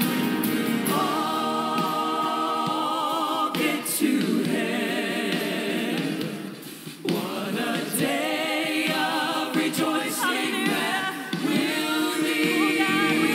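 Gospel hymn sung by several voices with vibrato, solo singers on microphones over a choir; the singing briefly dips quieter about halfway through.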